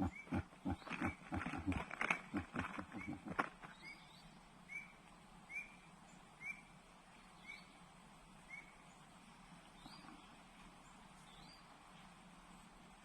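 Wild animal calls: a quick run of low pulsed calls for the first three seconds or so, then a single short rising chirp repeated about once a second.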